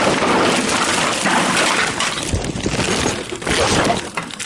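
Empty plastic bottles clattering and crackling against one another as a bagful of them is handled.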